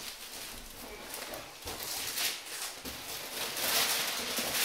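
Cardboard packaging being lifted and shifted, with rustling and scraping of cardboard that grows louder in the second half.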